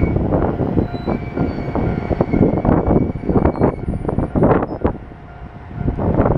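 Kishu Railway diesel railcar running past close by, its wheels and body rumbling in uneven surges as it rolls over the track.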